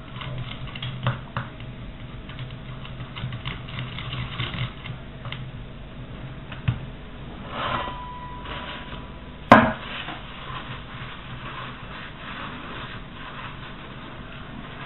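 Small clicks, scratches and rubbing from hands working on a 1/8 RC car's rear axle and bearing parts as they are cleaned. A short squeak comes about eight seconds in, and a sharp click just after it is the loudest sound.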